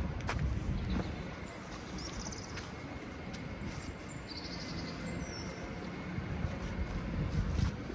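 Outdoor city ambience: a steady low rumble of distant traffic, with a few short bird chirps in the middle.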